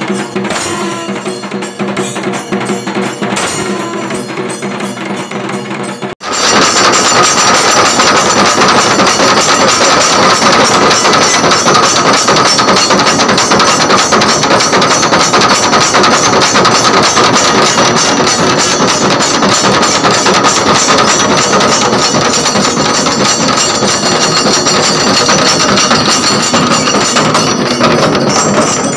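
Kailaya vathiyam ensemble playing: large barrel drums beaten fast with sticks, with long brass horns seen raised. About six seconds in the sound breaks off and resumes louder and denser, with steady held tones over the drumming.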